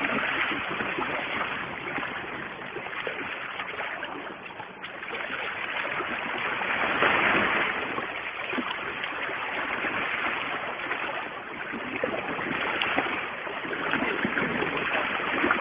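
Sea water washing and lapping against the boulders of a rock breakwater, a continuous wash that swells and eases.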